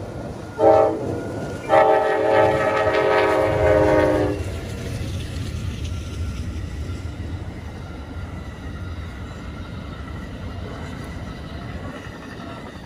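Amtrak passenger train's horn sounding a short blast and then a long one of about two and a half seconds, ending the grade-crossing signal. The train then passes with a steady low running noise that slowly fades.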